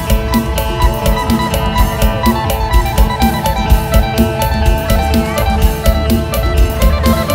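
Music with a steady beat under sustained melodic lines.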